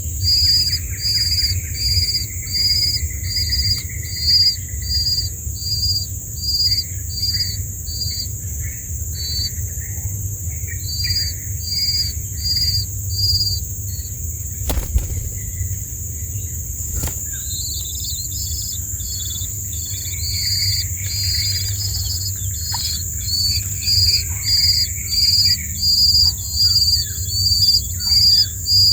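A bird chirping the same short, high note over and over, about one and a half times a second, breaking off for a few seconds around the middle and then resuming. Underneath is a steady high-pitched hiss and a low rumble, with two sharp clicks near the middle.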